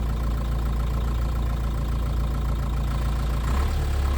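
Car engine idling with a steady low drone; its note steps up slightly about three and a half seconds in.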